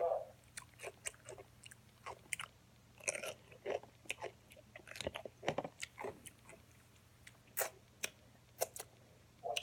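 A person chewing and biting food, with irregular sharp crunches and clicks of the mouth.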